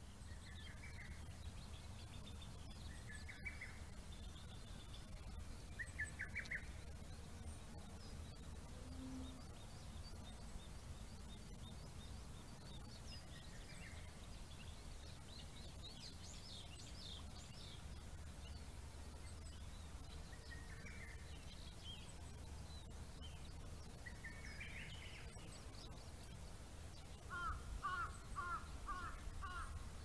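Lesser cuckoo (hototogisu) calling among the scattered calls and chirps of several other wild birds. The loudest is a quick run of about five sharp notes near the end. Under it runs a steady low rumble.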